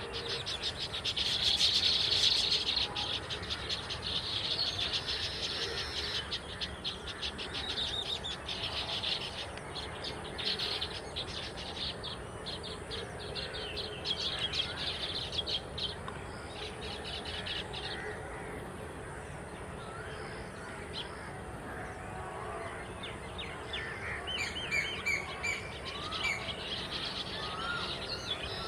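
Baya weavers chattering: a dense, rapid, buzzy chatter of many birds, loudest in the first few seconds and thinning out after the middle, with scattered short chirps near the end.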